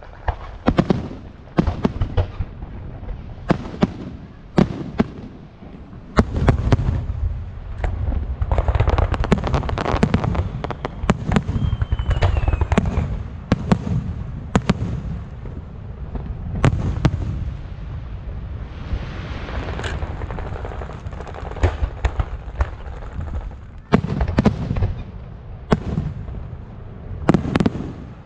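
Fireworks display: a rapid series of sharp bangs from bursting shells, with long stretches of dense crackling between them and a brief falling whistle about halfway through.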